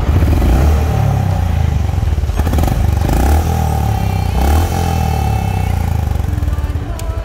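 Honda H'ness CB350's single-cylinder engine starting up and running on its newly fitted NGK iridium spark plug, with the revs rising and falling a few times about three to five seconds in.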